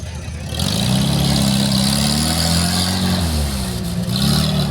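An off-road 4x4's engine revs up hard about half a second in and holds high under load. It eases off about three seconds in, then revs up again near the end.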